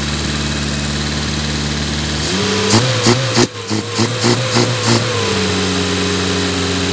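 Datsun 510's four-cylinder engine with twin SU carburettors, just started and idling steadily. About two seconds in it picks up speed and runs in quick uneven pulses with a wavering pitch for about three seconds, as if lightly revved, then settles back to a steady, slightly faster idle.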